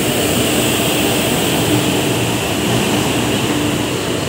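Electric locomotive moving along the track with a coach coupled to it: a steady running noise with a faint steady hum under it.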